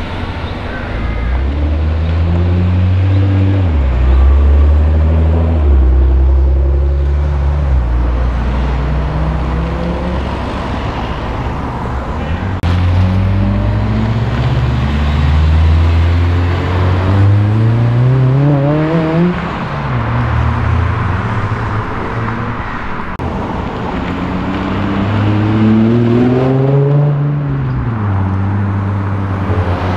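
Japanese performance cars, among them a Nissan GT-R, a Honda Integra Type R and a Nissan 350Z, pulling away one after another with their engines revving up. There is a deep exhaust rumble over the first several seconds, then several rising sweeps in pitch as each car accelerates off.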